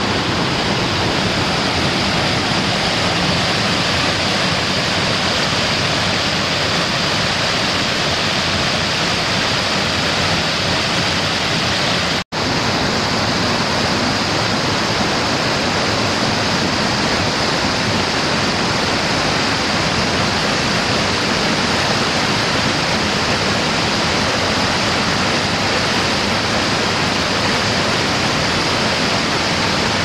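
Rain-swollen mountain stream rushing steadily over rocks and small cascades, a loud, even sound of water. It drops out for an instant about twelve seconds in, then carries on unchanged.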